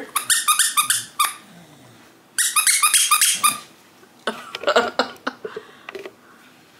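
Squeaky dog toy squeaked over and over, in three bursts of rapid squeaks each a second or more long, with short pauses between.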